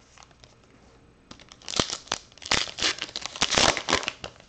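A foil wrapper on a baseball card pack being torn open and crinkled by hand. A quick run of crackling starts about a second and a half in.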